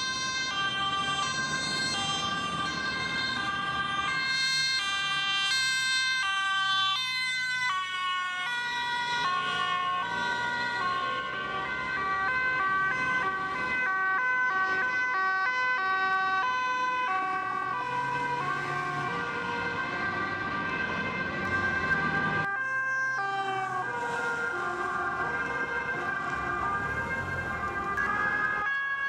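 Dutch police two-tone sirens sounding on vehicles driving with urgency, alternating steadily between a high and a low pitch, with traffic noise beneath. The siren breaks off and picks up again a few times as the footage changes vehicles.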